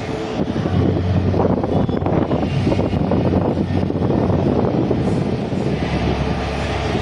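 Jet airliner's engines running loud at high power, a dense rumble with crackle running through it.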